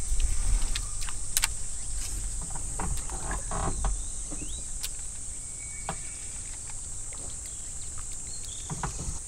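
Steady high-pitched insect chorus, with scattered clicks and knocks from the rod and reel as a small hooked fish is reeled in.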